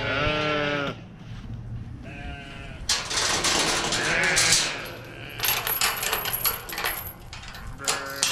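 A mixed flock of sheep and goats bleating: several calls a couple of seconds apart, with scattered sharp clicks and rattles between them.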